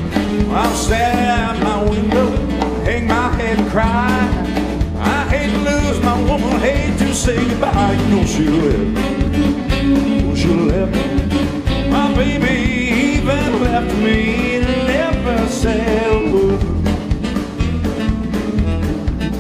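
Live rock-and-roll band playing: drums and bass keep a steady beat under guitars and a wavering lead melody.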